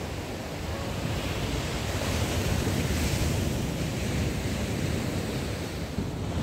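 Ocean surf breaking and washing up the sand, with wind rumbling on the microphone. The hiss of the wash swells about two seconds in and eases off again.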